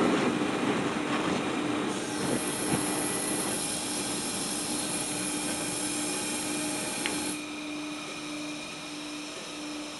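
Gas burners of an Angelo Po series 90 four-burner range burning at full flame, a steady rushing roar over a low steady hum. A higher hiss joins about two seconds in and cuts off suddenly about seven seconds in.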